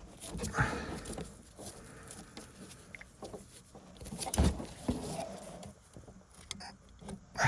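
Scattered clicks, knocks and rustles of hand tools working a brake line fitting tight, with one louder knock about four and a half seconds in.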